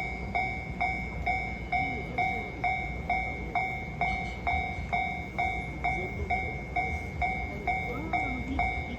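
Japanese railway level-crossing warning bell ringing, an electronic two-tone 'kan-kan' strike repeating evenly a little over twice a second, over a steady low rumble.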